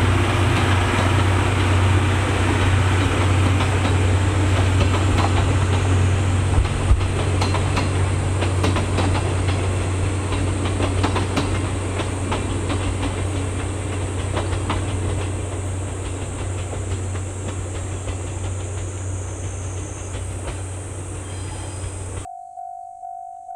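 Train rolling slowly on a shunting move, with wheels clicking over the rails and a steady low hum underneath, fading gradually as it moves off. The sound cuts off suddenly near the end and music takes over.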